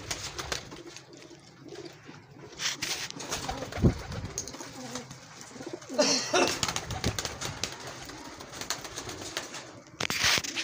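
Kasuri pigeons cooing in a loft, low and intermittent. A sharp thump about four seconds in is the loudest sound, and there are brief rustling noises around six and ten seconds.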